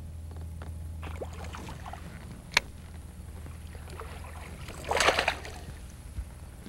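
A hooked largemouth bass thrashing at the water surface, with a splash about five seconds in, over a steady low hum. A single sharp click comes near the middle.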